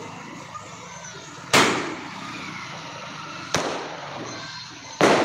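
Sky-shot aerial fireworks going off: three sharp bangs roughly two seconds apart, the middle one quieter, each with a short fading echo.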